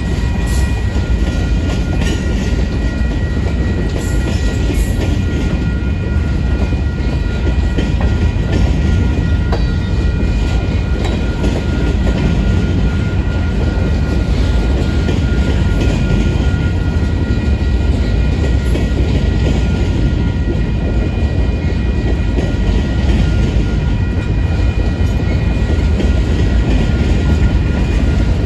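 Covered hopper cars of a Union Pacific freight train rolling past close by: a loud, steady rumble of wheels on rail with some clickety-clack, and thin steady high tones above it.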